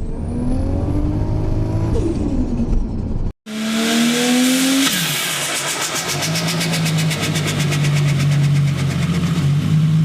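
Turbocharged car engines revving in two clips cut together. In the second, a short rev is followed by rapid, even fluttering chatter over the idling engine: turbo flutter, the compressor surging against the closed throttle on lift-off.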